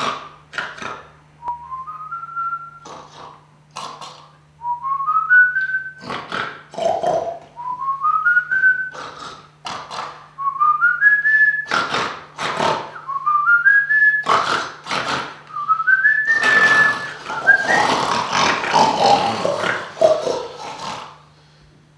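Someone snoring: each breath brings a short whistle that climbs in small steps, followed by rough, noisy breathing, repeating about every two and a half to three seconds. Near the end the breathing turns into a longer, louder, noisier stretch before it stops.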